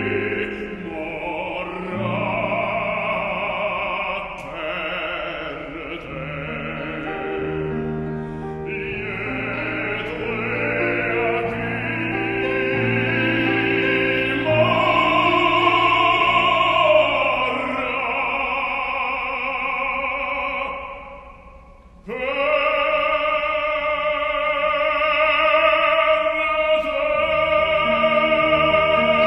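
Operatic baritone singing an aria with piano accompaniment, his voice full of vibrato. After a brief drop about twenty-one seconds in, he takes up a long, loud held note.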